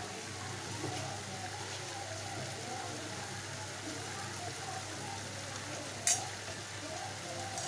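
Chopped tomatoes frying in oil in a pan, a steady sizzle as the tomato mixture sautés down. A single sharp clink of the steel ladle against the pan about six seconds in.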